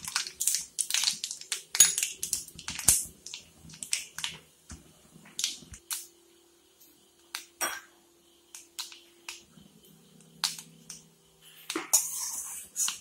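Mustard seeds and urad dal frying in hot oil in a steel kadai, with irregular sharp pops and crackles. The pops come thick at first, thin out in the middle and pick up again near the end, over a faint steady hum.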